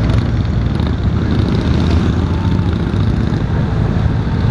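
Honda Valkyrie F6C's flat-six engine running steadily under way, a continuous low rumble mixed with road and wind rush at the handlebar microphone.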